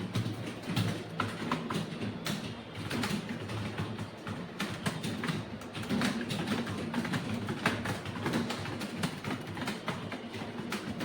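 Computer keyboard being typed on fast, with many irregular keystroke clicks, several a second.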